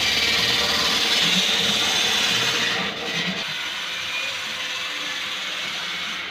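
Workshop power tools running: a steady mechanical whirring and rasping as bamboo tubes are machined on a small electric lathe. About three seconds in it drops to a quieter, steady background hum.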